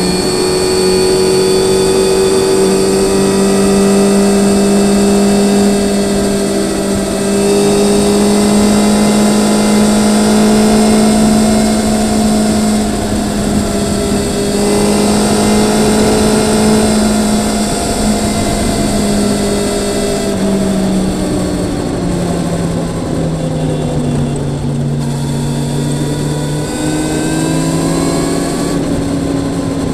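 Motorcycle engine running at steady revs while riding, with road and wind noise; the engine note drops lower about two-thirds of the way through as it slows, then climbs slightly again near the end.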